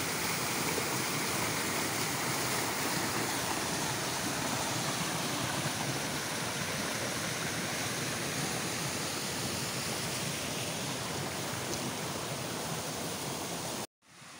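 Small waterfall rushing steadily over granite boulders and splashing into a rock pool. It cuts off abruptly near the end, giving way to a much quieter steady hiss.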